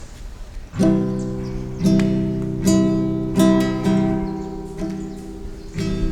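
Acoustic guitar strumming chords, starting about a second in, each chord struck and left to ring, about seven strums in all.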